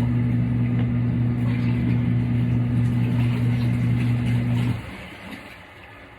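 Kuppet portable twin tub washing machine's wash motor running with a steady low hum while it agitates the clothes. It stops about five seconds in, leaving a short pause in the wash cycle.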